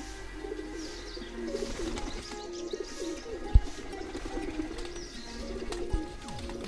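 Pigeons cooing in an aviary, many low wavering calls overlapping, with smaller birds chirping faintly above them. A single sharp thump sounds about halfway through.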